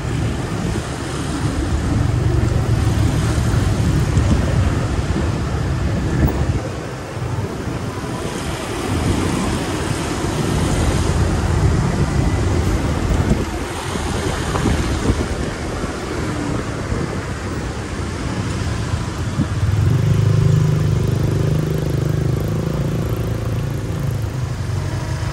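Motorbike engine running and surrounding road traffic in slow, congested city traffic: a constant engine hum with cars and scooters around it. A nearby engine grows louder about twenty seconds in.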